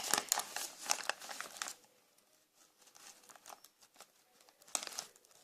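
Paper crinkling and rustling as it is handled, dense for the first second and a half or so, then quieter with one more short crackle near the end.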